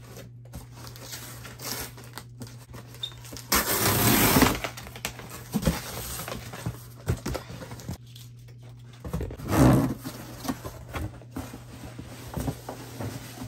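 Cardboard shipping box being opened by hand: packing tape peeled off the lid and the cardboard flaps scraping and flexing, with scattered clicks and two louder tearing rasps, the first about four seconds in and the second near ten seconds.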